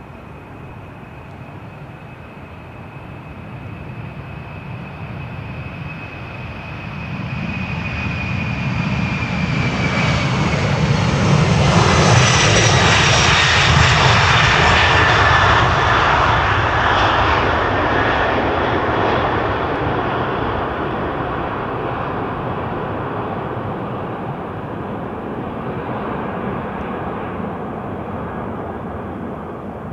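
Boeing 747-400's four Pratt & Whitney turbofans at takeoff power as the jet rolls past and lifts off: a rumble with a high whine that slowly falls in pitch as it passes. It grows louder to a peak about twelve seconds in, then fades slowly as the aircraft climbs away.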